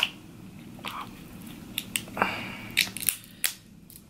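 Close-miked chewing and biting of seafood: a string of short wet mouth clicks and crunches, with a brief scraping rustle a little over two seconds in.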